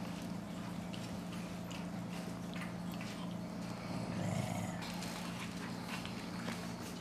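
Shih Tzu puppies playing and tussling on a hardwood floor: claws scrabbling and tapping on the wood, with small dog play noises and a louder moment about four seconds in. A steady low hum runs underneath.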